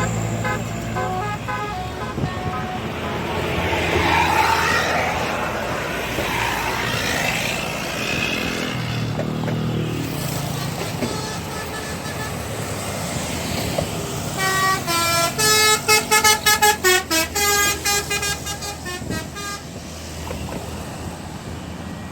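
Bus telolet horn playing short stepped melodies over the noise of passing road traffic. About fifteen seconds in comes a louder run of quick, chopped horn notes lasting about five seconds.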